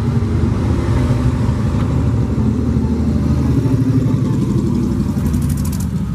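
Cruiser-style motorcycle engine running loud and deep as the bike rides past close by, passing about four seconds in.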